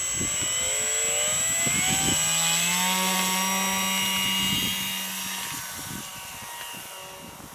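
Multiplex FunCub RC plane's electric motor and propeller whining up in pitch as the throttle opens for the takeoff run, then holding steady. Its whine fades after about four and a half seconds as the plane lifts off and climbs away.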